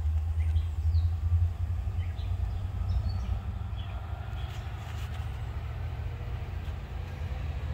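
Low, uneven rumble of a Norfolk Southern freight train approaching from far down the line, with a few short bird chirps over it.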